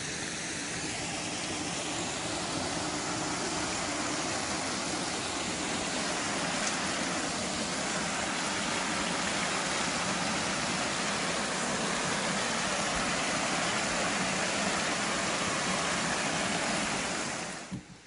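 Steady rush of a mountain stream running over rocks, cutting off suddenly near the end.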